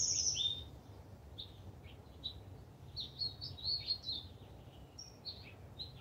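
Bird chirping in short bursts of high quick notes: a bright phrase at the start, a few scattered chirps, then a quick run of notes about three to four seconds in, over a faint steady low rumble.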